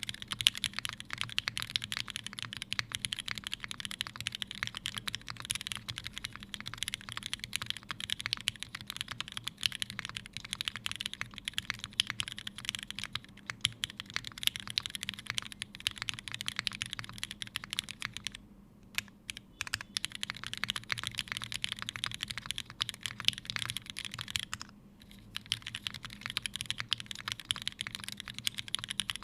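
Steady, fast typing on a Unikorn r2.1 mechanical keyboard with lubed and filmed Cherry Hyperglide linear switches (62 g springs) in an aluminium plate and GMK doubleshot ABS keycaps. The keystrokes run on continuously, breaking off briefly a little over halfway through and again a few seconds later.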